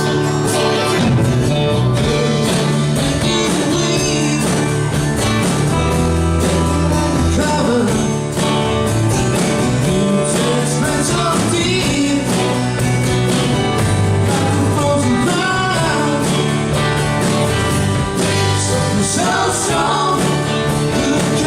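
Live rock cover band playing a song with drums, bass, guitar and keyboards, and a singer's voice over them.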